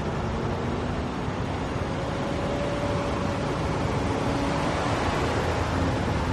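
New Volvo FH truck driving: a steady rushing drone of engine and road noise with a faint engine hum, growing slightly louder toward the end.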